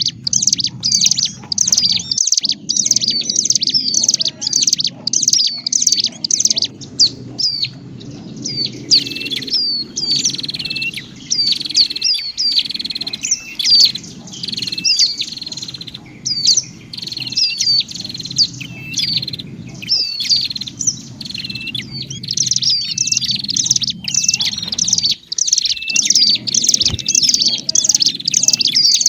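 Agitated, rapid chattering calls of ciblek gunung (mountain prinia) mixed with prenjak calls: a fast run of sharp, high, downward-slurred chirps, several a second, broken by a few short pauses. A steady low hum runs underneath.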